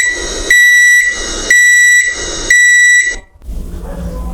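Microwave oven beeping: a high electronic tone sounding for about half a second once a second, three times, stopping about three seconds in. A low steady hum follows.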